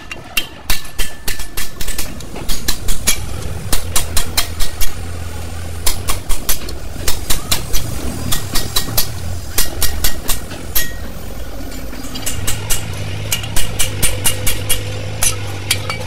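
Hammer driving a steel chisel or punch against a bus drum-brake shoe to take off the worn lining: runs of sharp metal-on-metal strikes, several a second, with short pauses between runs. A vehicle engine hums underneath at times.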